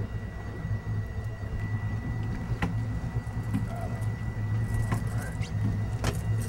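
Boat engine running steadily at trolling speed, with a faint steady high-pitched tone above it. A few sharp knocks and clicks come about two and a half, five and six seconds in.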